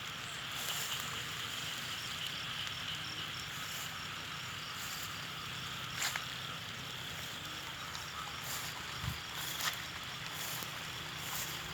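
Steady outdoor ambience: an even hiss with a high chirring running through it, broken by a few soft knocks.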